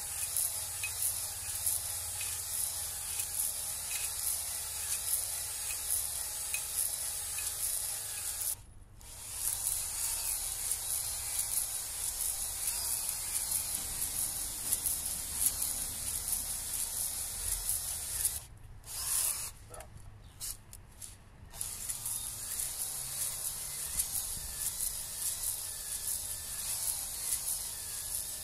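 18-volt Makita cordless drill spinning a flex (ball) hone in a cast-iron cylinder bore of a Ford 7.3 IDI V8 diesel block: a steady high hiss and whir of the abrasive balls scraping the oiled bore. It is cutting the crosshatch that new piston rings seat on. The sound stops briefly about nine seconds in, and again for about three seconds around twenty seconds in.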